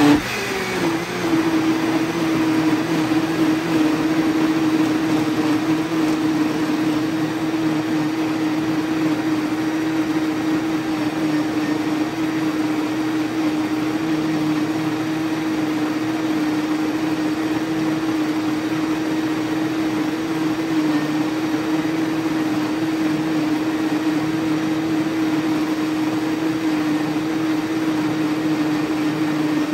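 Electric smoothie blender running on a long blend, pureeing puppy food and hot water into mush. The motor picks up speed at the very start, then holds a steady hum.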